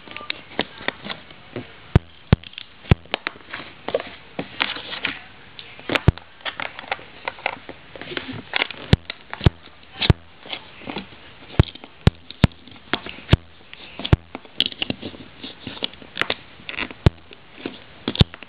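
Plastic LEGO bricks handled and pressed together close up: irregular sharp clicks and snaps, with rustling from fingers between them.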